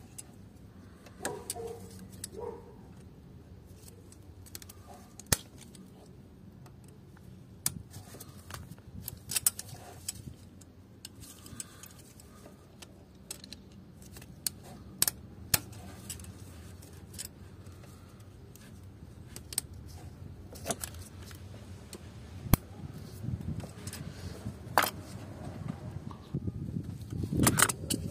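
Scattered sharp metallic clicks and clinks of pliers working the hose clips and fittings on a diesel engine's tandem pump, with the engine switched off.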